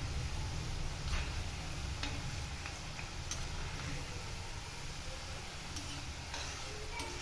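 Garlic cloves frying in hot mustard oil in a pan, a steady sizzle, with several light clicks of the stirring spoon against the pan.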